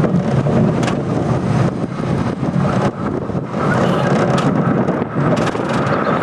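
Gerstlauer junior roller coaster train running along its steel track, a steady loud rumble of the wheels with rattling as it swings through a curve.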